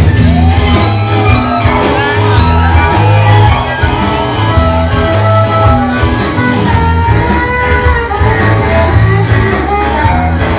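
Rock band playing live and loud, an instrumental stretch with electric guitar lines over a heavy bass.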